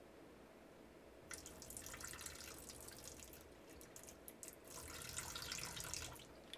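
Excess water being poured off from a stainless steel pot of rinsed vegetables over its anti-spill rim, trickling and splashing in two pours, the second louder.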